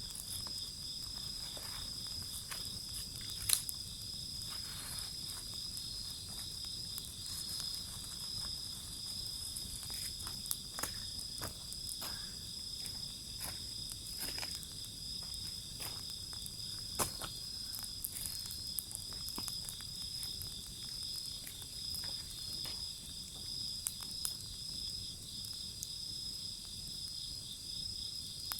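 Wood bonfire crackling, with scattered sharp pops, over a steady high-pitched chirring of insects.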